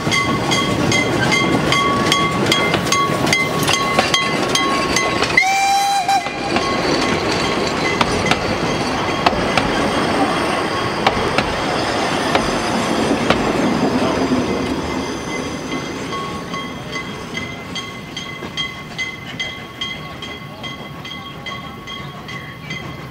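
Narrow-gauge steam train (locomotive I K 54 and its wooden coaches) passing close by and then drawing away: wheels clicking over the rail joints under a steady high ringing tone. A short whistle-like tone sounds about five seconds in, and the train noise fades near the end.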